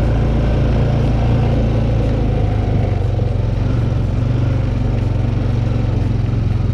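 An engine running steadily at a low, even speed, with no change in revs.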